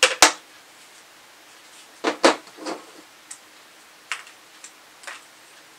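Clicks and knocks from a handheld ham radio and its small connector parts being handled and set down on a tabletop. Two loud clicks come at the start, a cluster about two seconds in, then a few lighter taps.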